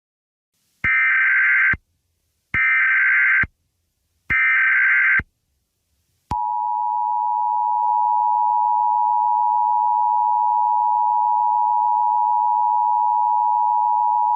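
Emergency Alert System SAME header: three short bursts of buzzy digital data, just under a second each, followed a second later by the steady two-tone EAS attention signal, marking the start of a new alert.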